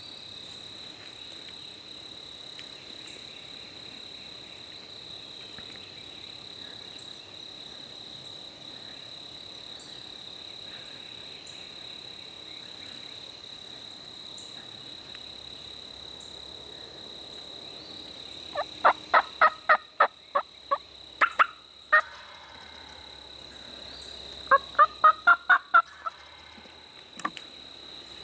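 Wild turkey gobblers gobbling: two runs of loud, rapid rattling gobbles in the last third, over a steady high-pitched insect buzz.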